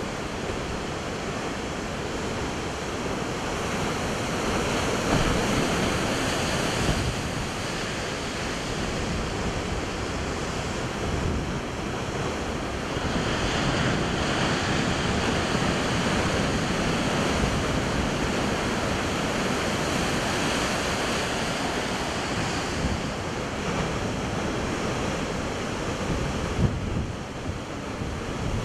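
Heavy surf breaking against a rocky seawall: a steady rushing wash of water that swells and eases as each wave hits, with wind buffeting the microphone. A brief thump stands out near the end.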